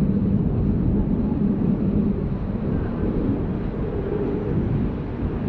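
City street ambience: a steady, low rumble of traffic with no single sound standing out.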